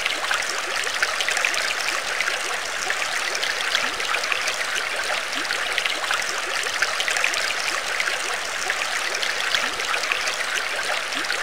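Steady trickling, bubbling water with many small drips and splashes, an even running-water ambience.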